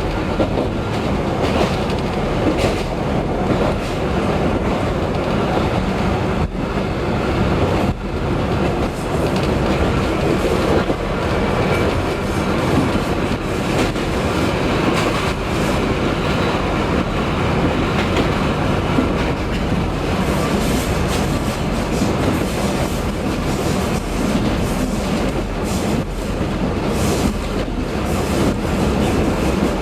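Train running along the line, a steady rumble of engine and wheels with clicks as the wheels pass over rail joints. Some higher-pitched wheel noise comes in the later part.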